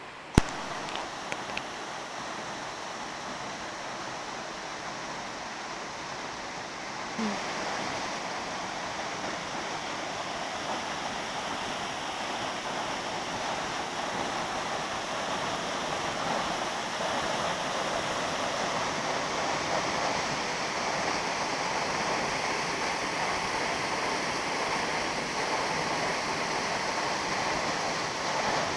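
Silverband Falls' water pouring and splashing in a steady rush, stepping up in loudness about seven seconds in and growing slowly louder after that. A single sharp click right at the start.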